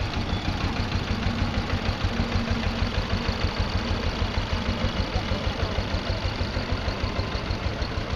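Old Deutz tractor's diesel engine chugging at slow parade speed, with an even beat of several pulses a second.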